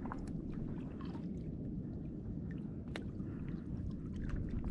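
Steady low rumble of wind and water around a kayak on the open sea, with scattered small clicks and water sounds against the hull.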